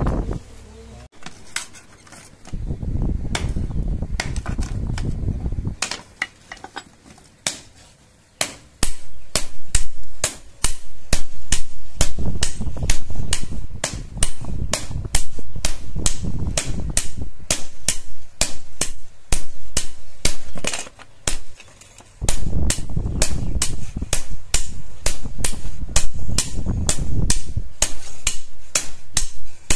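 Hand hammer striking steel on an anvil, forging a blade: a long run of quick, sharp blows, about three a second, beginning about eight seconds in. A low rumble comes and goes twice, a few seconds in and again about two-thirds of the way through.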